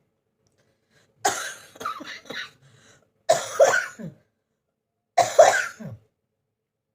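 A person coughing hard in three bouts about two seconds apart, the first a run of several quick coughs: a bad cough from a cold.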